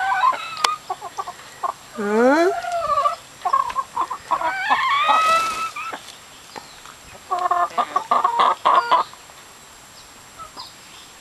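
Domestic hens clucking and calling as they feed together from a shared bowl. The sounds come in scattered calls, with a dense run of quick clucks about two-thirds of the way through, then they go quieter near the end.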